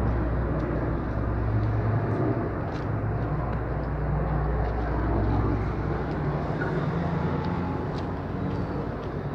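Military aircraft engines droning overhead as a formation flies past: a steady deep hum whose low tones waver slightly in pitch.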